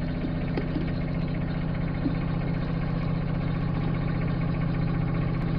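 Espresso machine's pump running with a steady hum while the shot pours into the glass.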